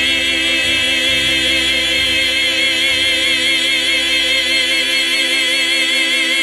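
A vocal trio of two men and a woman holding the song's final chord together through microphones, one long sustained note with a wavering vibrato.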